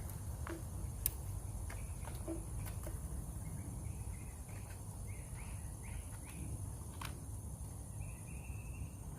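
Outdoor ambience with a steady low background rumble and short bird chirps, several in the second half, and a few sharp clicks from plastic trimmer parts being handled.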